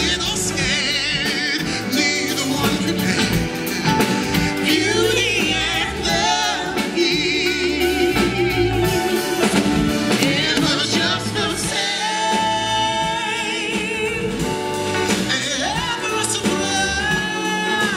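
A man sings live into a handheld microphone, with strong vibrato, over band accompaniment that includes piano. He holds long notes past the middle and slides up in pitch near the end.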